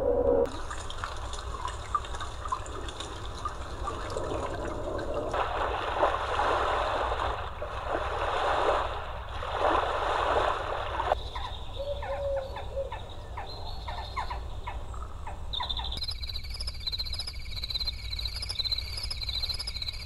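Drift Away white noise and sleep sound machine playing its recorded nature sounds in turn through its speaker. It starts with a steady watery hiss, then ocean waves surge in and out every couple of seconds from about five seconds in. A stretch of quick crackles follows, and in the last few seconds comes a summer-night track of insects chirping in a steady repeating rhythm.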